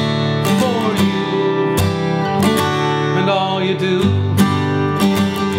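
Acoustic guitar strummed in a steady rhythm, about two strums a second, its chords ringing between strokes.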